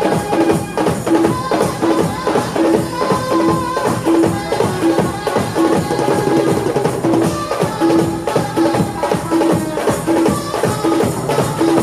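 Indian wedding band playing dance music: drums beating a fast, steady rhythm under a short melodic note that repeats over and over.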